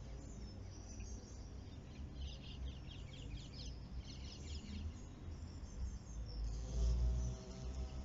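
Violet carpenter bee buzzing at a flower: a low hum that swells about six and a half seconds in, the loudest part. Behind it, high, rapid chirping runs throughout.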